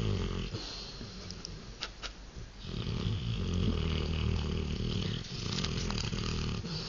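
Rottweiler snoring in his sleep: the tail of one snore, a quieter breath, then a long, low snore starting a little over a third of the way in.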